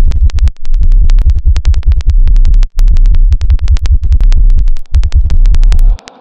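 A harsh, distorted electronic soundtrack: a very loud, clipped bass pulse chopped by rapid clicks, about ten a second. It drops out briefly several times.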